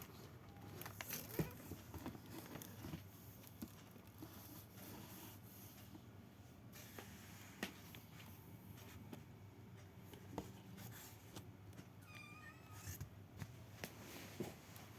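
A cat meows once, about a second long, near the end, over a few faint clicks.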